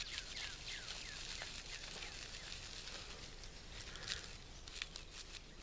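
A bird gives short down-slurred chirps, about three a second, for the first second or so. About four to five seconds in come a few short scratchy crackles: dry juniper bark being rubbed and shredded by hand into fine tinder.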